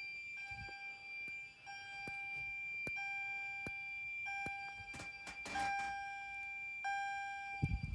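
Fire alarm system sounding in alarm: a mid-pitched tone that restarts about every 1.3 seconds over a steady high-pitched beep, with scattered sharp clicks.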